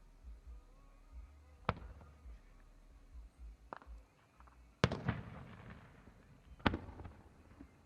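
Fireworks shells bursting: four sharp bangs a second or two apart, the loudest about five seconds in followed by a short spell of crackling.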